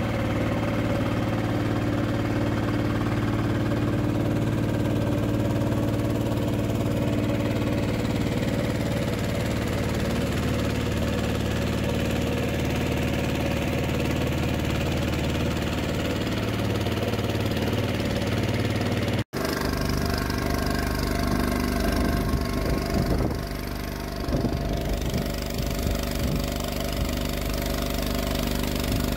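Motor of a small aluminium boat running steadily at cruising speed, a constant engine drone. A split-second dropout about two-thirds of the way through, after which it runs on much the same.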